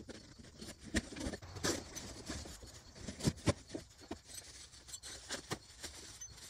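Cardboard box being opened and unpacked by hand: irregular scrapes, knocks and rustles of the cardboard flaps, with plastic wrapping crinkling near the end.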